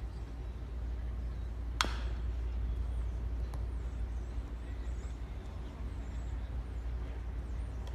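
A metal baseball bat strikes a pitched ball with a single sharp ping about two seconds in, over a steady low rumble.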